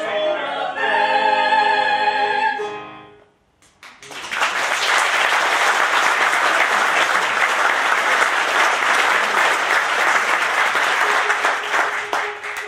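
Mixed chorus of stage singers holds the final chord of an operetta finale, which cuts off about three seconds in. After a second of silence, a theatre audience breaks into steady, loud applause that runs on almost to the end.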